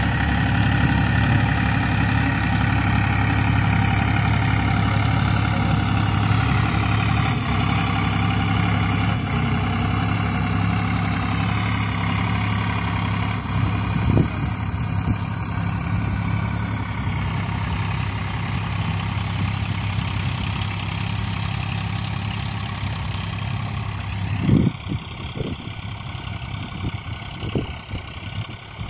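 Eicher 485 tractor's three-cylinder diesel engine running steadily under load as it pulls a harrow through the field. A few dull thumps come near the end, where the engine sound also becomes quieter.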